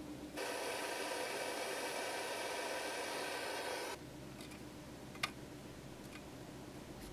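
A steady hiss that starts abruptly, runs for about three and a half seconds and cuts off suddenly, followed a second later by a single light click.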